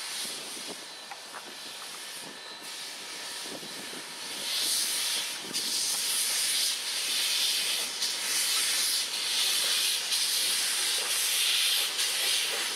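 Steam locomotive hissing steady escaping steam as it rolls slowly over the yard track. The hiss swells louder about four seconds in.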